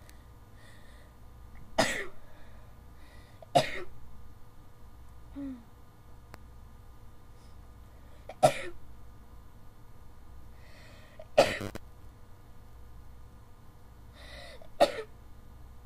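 A person sneezing five times in an allergy sneezing fit. Each sharp sneeze comes a few seconds after the last, most with a short breath drawn in just before.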